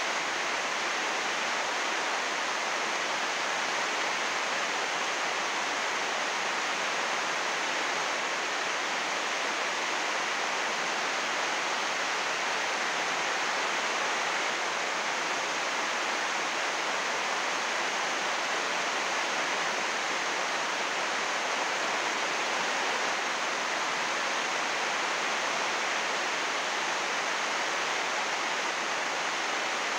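Heavy rain falling on an 80-micron UV greenhouse plastic sheet: a steady, dense hiss with no single drops standing out.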